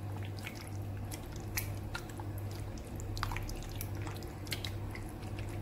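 Wet squelching and small clicks of bare hands kneading cubes of chicken breast through a thick yogurt, cream and mayonnaise marinade in a glass bowl, over a steady low hum.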